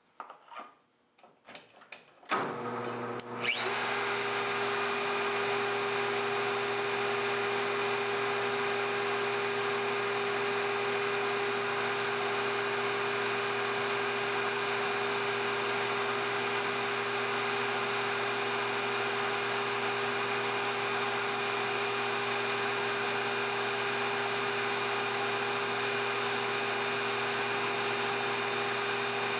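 A few knocks, then a lathe and its live-tooling spindle start about two seconds in and come up to speed within a second. They run with a steady, even whine while a long drill bores the pin hole in the cue's joint end.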